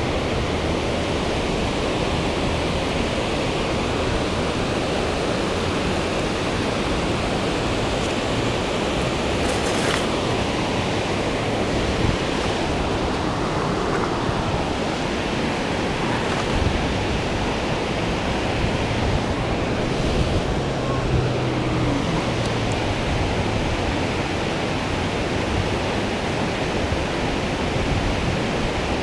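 River water rushing steadily, a constant even hiss with no let-up.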